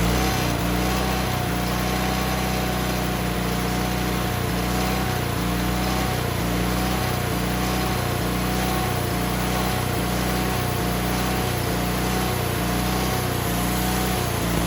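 Woodmizer LT40 band sawmill running steadily at full speed after throttling up, its engine holding an even pitch under a faint, slightly wavering whine.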